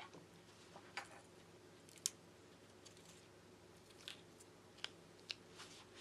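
A few faint, sharp clicks and taps from small tools and parts being handled during an iPad Pro screen replacement, over a low steady hum.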